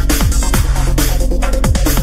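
Electronic dance music with a steady kick-drum beat.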